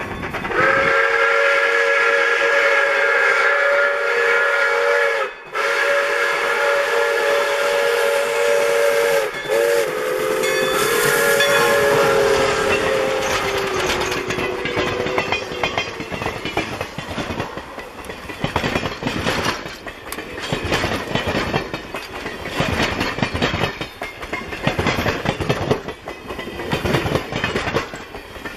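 Pere Marquette 1225, a 2-8-4 Berkshire steam locomotive, sounds its chime whistle in the grade-crossing pattern of long, long, short, long, with the pitch of the last long blast sagging as it passes. The passenger cars follow, their wheels clicking steadily over the rail joints.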